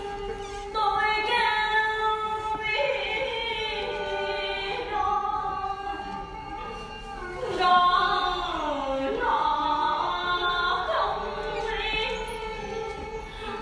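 A female chèo singer singing a Vietnamese folk-theatre melody with sliding, ornamented pitch. A steady held note from the accompanying traditional instruments sounds underneath.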